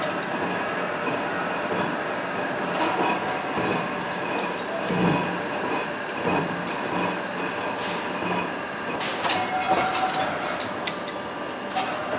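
Steel-forging machinery in a tool forge running with a steady mechanical din, broken by sharp metal clanks, several of them close together about nine to ten seconds in.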